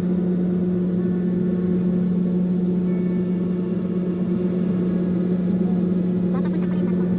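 Boat engine running at a steady drone, a constant low hum that holds the same pitch throughout.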